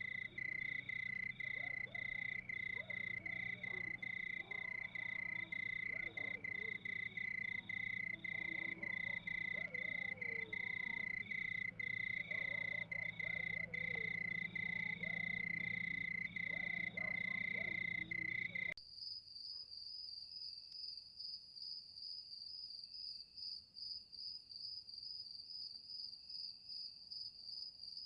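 Night chorus of crickets trilling steadily, with frogs calling underneath. About two-thirds of the way through it cuts abruptly to a quieter, higher-pitched cricket trill on its own.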